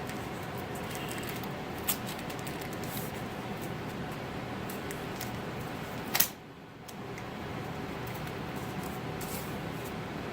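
Small clicks and taps of hands working with wooden stir sticks and tape, with a sharper snap about six seconds in, over a steady background hum.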